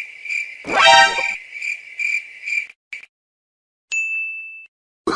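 Edited-in comedy sound effects. A high, pulsing whistle-like tone is joined about a second in by a brief burst of rising and falling tones, then cuts off abruptly into dead silence. A short high beep follows near the end.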